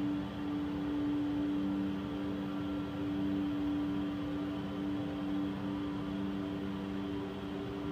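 A steady low hum of two held tones over a faint hiss. The lower tone swells and fades every second or so.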